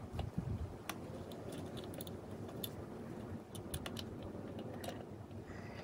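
Small plastic clicks and taps as fingers handle a TOMIX plastic model building and press a loose guardrail piece back onto its base, scattered irregularly.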